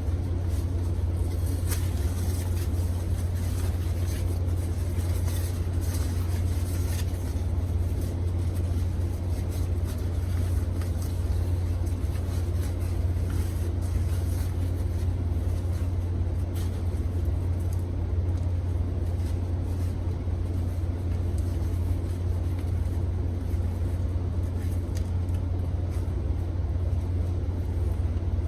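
A steady low-pitched hum that does not change, with faint light clicks and rustles over it now and then.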